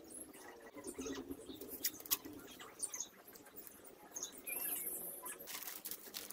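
Masking tape being pulled off the roll and pressed onto a motorcycle engine's alloy casing: crackling and rustling with scattered small clicks, and a longer stretch of tape peeling off the roll about four and a half seconds in.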